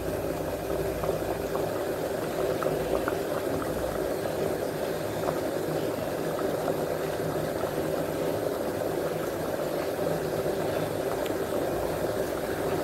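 Covered metal cooking pot boiling over a wood fire in a mud stove: a steady bubbling with scattered small pops.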